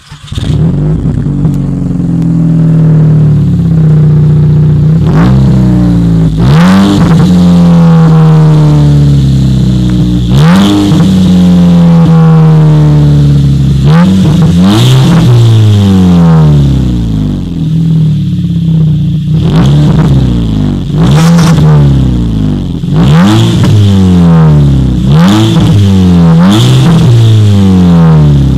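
Volkswagen Golf V GTI's turbocharged 2.0-litre four-cylinder engine through a Ragazzon aftermarket exhaust. It starts up, then is revved while standing: two long slow revs, then a run of about eight quick blips, with short sharp cracks at several of them.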